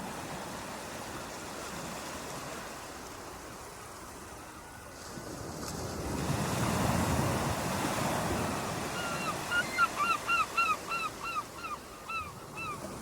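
Ocean surf washing onto a beach, with a wave swelling up about halfway through. Near the end a bird calls rapidly, short repeated calls about three a second.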